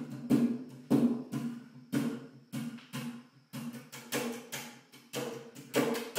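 Percussive accompaniment music: sharp struck-percussion hits about twice a second, each ringing on with a low pitched tone.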